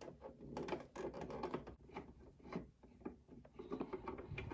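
Phillips screwdriver loosening a screw in the plastic back of a sewing machine: faint, irregular small clicks and scrapes.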